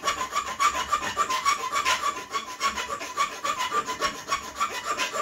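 The small metal saw of a Victorinox Workchamp Swiss Army knife cutting into a 6 mm round steel bar, in quick, even back-and-forth rasping strokes.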